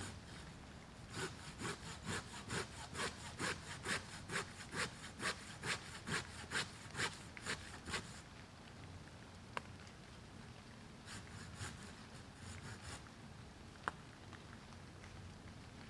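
Hand saw cutting wood in steady back-and-forth strokes, about two to three a second, stopping about eight seconds in. After a pause a short second bout of sawing follows, with a couple of sharp clicks.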